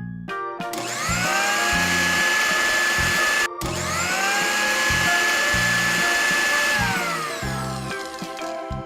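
A small electric motor spins up with a rising whine, holds steady, stops for a moment and starts again, then winds down near the end, over children's background music.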